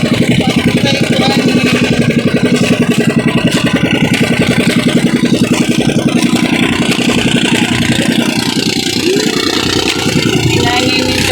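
Inboard engine of a motorized outrigger boat (pambot) running steadily with a fast, even pulsing beat. About nine seconds in the pulsing eases and a rising tone comes in, as the engine's note changes.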